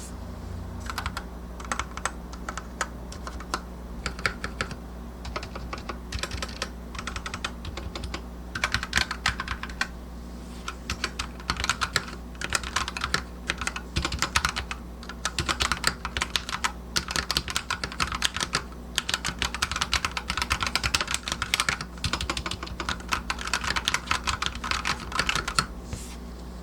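DarkFlash GD87 tenkeyless wireless mechanical keyboard being typed on: quick runs of key clacks in bursts of a few seconds, broken by short pauses.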